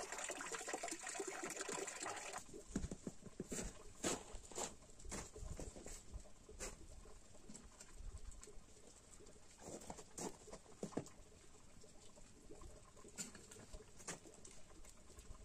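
Water pouring from a stone spring fountain, which cuts off about two seconds in; then a small wood fire in a stone fire pit crackling, with scattered sharp snaps and clicks as twigs are handled and fed to it.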